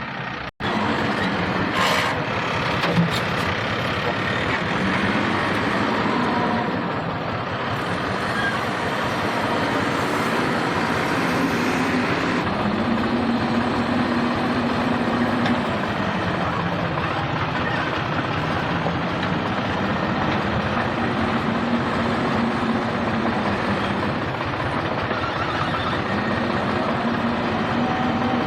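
Heavy diesel engine of earthmoving machinery running steadily, its pitch rising and falling as it works under load.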